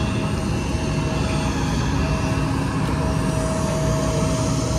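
Steady jet aircraft noise on an airport apron: a dense low rumble with a thin, steady tone running through it.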